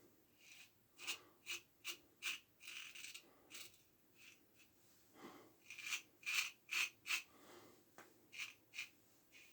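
1907 Ever Ready single-edge safety razor scraping through lathered stubble against the grain: runs of short, quick strokes, three or four close together, with a pause of about two seconds midway.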